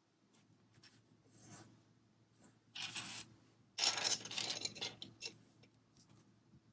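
Loose plastic Lego pieces clicking and rattling as they are handled, with two louder bursts of rattling about three and four seconds in.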